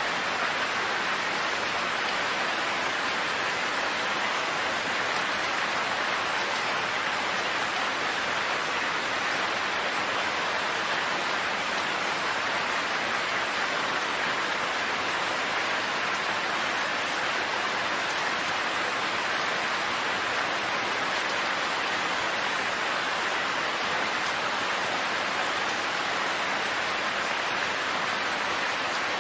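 Steady rainfall, an even hiss of many drops that does not change.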